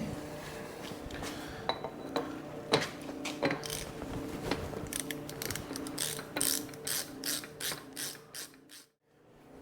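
Ratchet wrench clicking as it is worked on an axle-end fitting. Scattered clicks give way to a steady run of about three clicks a second that gets quicker, then stops abruptly near the end.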